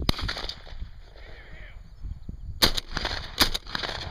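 Shotgun shots fired at passing doves: one sharp report right at the start, then two more a little under a second apart in the second half, each with a short echo.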